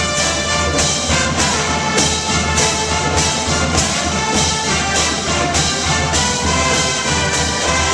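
Marching band playing: trumpets and trombones over drums, with a steady beat of drum hits about twice a second.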